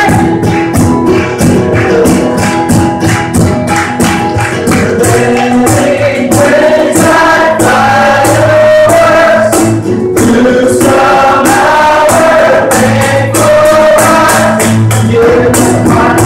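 Live praise band: several voices singing together over strummed acoustic guitar and a cajon keeping a steady beat.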